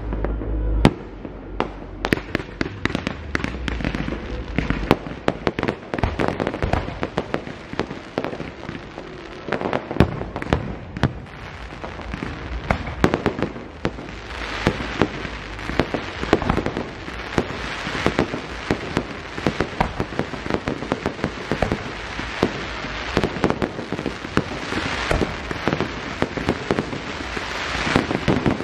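Aerial fireworks going off in a rapid, continuous string of sharp pops and bangs, thickening into a dense crackle over the second half.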